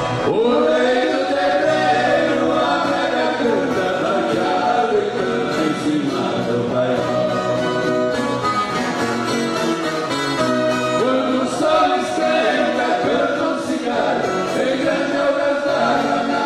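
Several voices singing a sertanejo caipira song together, with violas caipiras (ten-string Brazilian folk guitars) strummed under them.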